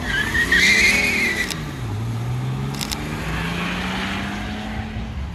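BMW 3 Series estate's engine accelerating away. The revs dip about a second in, then climb steadily for about three seconds. A brief high wavering squeal rides over the first second and a half.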